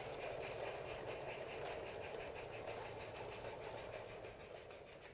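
Faint running sound of a 16 mm scale garden-railway train moving away along the track, slowly fading, with a quick, even ticking above it.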